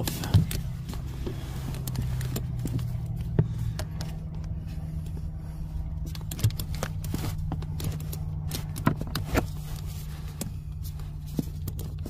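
Irregular clicks and light knocks from hand work under a car's dashboard, over a steady low hum.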